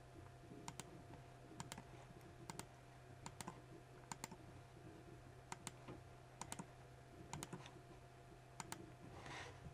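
Faint computer mouse clicks, often in quick pairs, about one every second, over a low steady hum.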